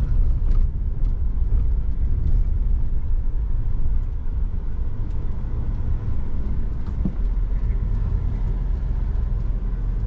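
Pickup truck's engine and tyre rumble heard from inside the cab while it drives across a field, with a single light knock about seven seconds in.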